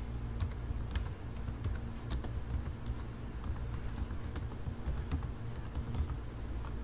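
Typing on a computer keyboard: a run of quick, irregular keystroke clicks, over a steady low hum.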